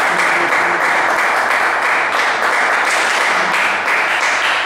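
Spectators clapping between table tennis points, the applause fading out near the end.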